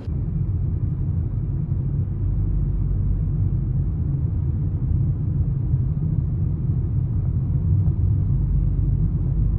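Steady low rumble of a car's road and engine noise heard from inside the cabin while driving, with no distinct events.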